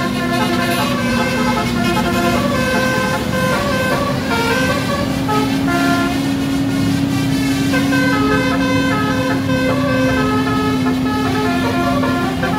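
A tour bus's basuri horn (multi-tone 'telolet' horn) playing a tune in quick stepping notes over a steady low held tone, loud and without a break.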